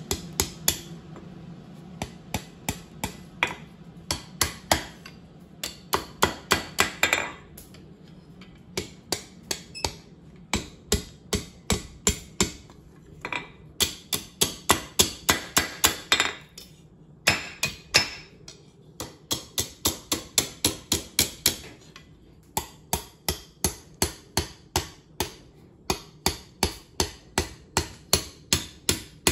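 Hand hammer striking red-hot steel on an anvil face, rolling the bar's end into a tight scroll. The blows come in quick runs, several a second, broken by short pauses.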